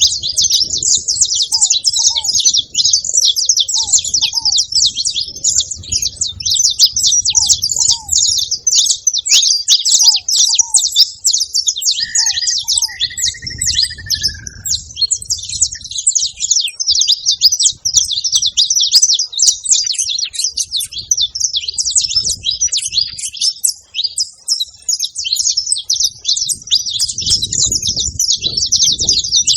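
Many saffron finches chirping at once in a dense, unbroken chatter of high chirps.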